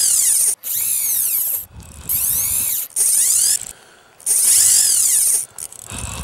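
Fly reel's click-and-pawl drag buzzing as a large fish runs and strips line off the spool. It comes in five bursts of about a second each, rising and falling in pitch as the spool speeds up and slows.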